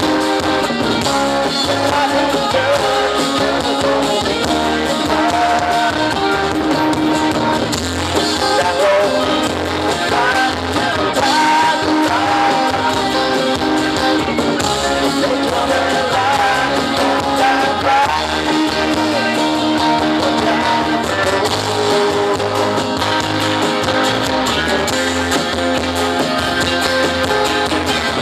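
Live band playing a song: a singer over guitar accompaniment with a steady beat.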